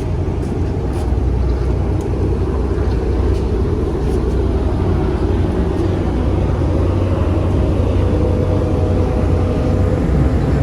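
Steady low rumble of a car ferry's engines, with no clear change in level.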